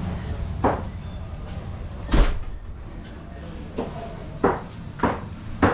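Restaurant room noise: a steady low hum with five sharp knocks or clatters, the loudest about two seconds in.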